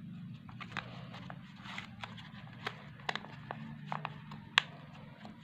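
A sheet of red printer paper crinkling and crackling as hands crease and fold it into an origami boat, with irregular sharp crackles, the loudest about four and a half seconds in.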